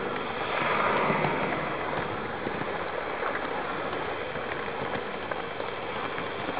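Electric model train running on its track, heard from a camera riding on the train: a steady clattering rumble of wheels and motor with faint scattered clicks from the rail joints. It gets louder for about a second near the start, as another train passes alongside.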